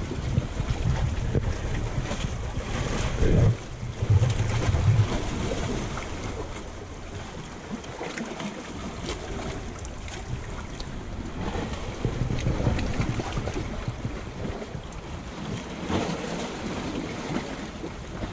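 Small sea waves washing and lapping among shoreline rocks, with wind buffeting the microphone in gusts, strongest about three to five seconds in.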